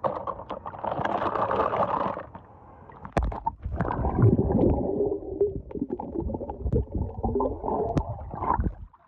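Water sloshing and splashing at the surface, then from about three seconds in, heard from under the water: muffled gurgling and bubbling with irregular knocks.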